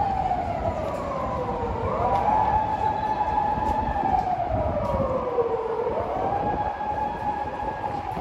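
Emergency-vehicle siren wailing, its pitch slowly rising, holding, and falling in long cycles of about four seconds, over a steady low city rumble.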